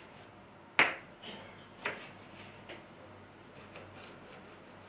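Kitchen knife slicing a tomato on a cutting board: a few sharp knocks of the blade meeting the board, the first, about a second in, the loudest.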